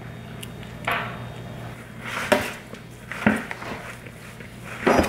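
Light mayonnaise squeezed from a plastic squeeze bottle, then a metal spoon stirring it into shredded smoked tuna in a plastic bowl: a few short, irregular scrapes and squishes over a low steady hum.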